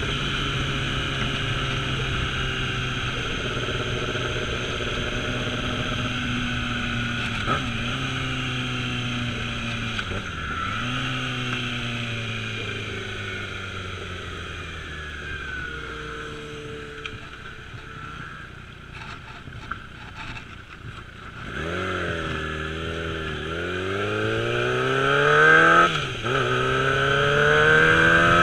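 Yamaha R6 inline-four engine downshifting with throttle blips to match revs: the engine note drops in steps, with a short blip at each gear change, and settles low as the bike slows. From about three quarters of the way in it revs up again as the bike accelerates, dipping once at a gear change near the end.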